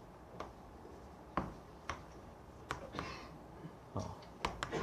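Quiet room with scattered light clicks and taps, about half a dozen, a few of them bunched together near the end, and a faint brief rustle about three seconds in.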